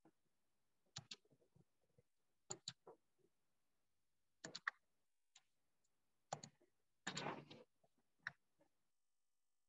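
Faint clicks from someone working a computer, mostly in quick pairs a second or two apart, with a short rustle about seven seconds in.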